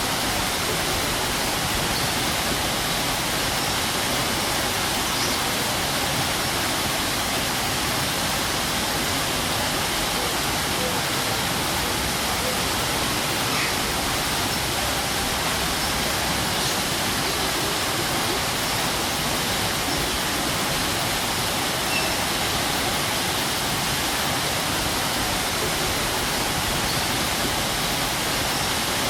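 Strong waterfall: a steady, unbroken rush of falling water.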